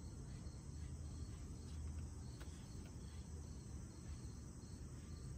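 Insects chirping in a steady rhythm, about two short chirps a second, with a continuous high buzz, over a low rumble.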